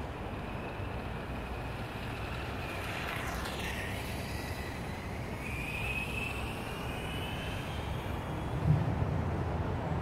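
Motor whine of a small model motorcycle running around a court, the pitch dropping sharply as it passes about three seconds in, then rising again as it speeds up, over a steady low background rumble. A short thump near the end.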